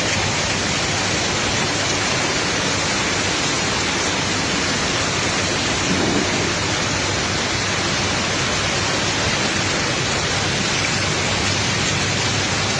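Heavy downpour during a cloudburst, a steady dense hiss of rain with a brief swell about six seconds in.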